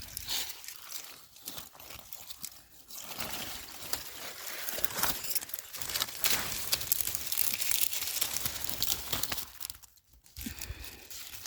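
Dry cowpea plants and leaves rustling and crackling as they are handled and picked through, dense and busy through the middle, with a brief lull just before the end.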